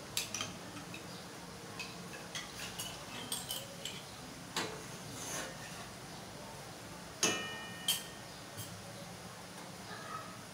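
Sliced onions frying in oil in a metal pot, crackling and popping now and then. About seven seconds in, a sharp metallic clink rings briefly, with a second click just after.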